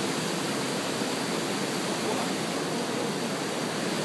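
Steady, even rushing hiss of outdoor ambient noise with no distinct events.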